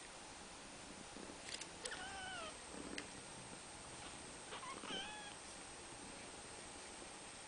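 Young kittens mewing: two short, high, thin calls, the first falling in pitch about two seconds in, the second wavering about five seconds in, with a few faint clicks between.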